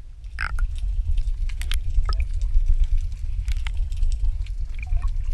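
Water heard through an underwater camera: a steady low rumble with scattered sharp clicks and crackles. The sound rises about a third of a second in.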